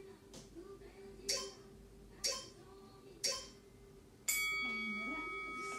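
Interval timer counting down: three short pips about a second apart, then a long ringing beep, marking the end of a 15-second stretch or rest interval.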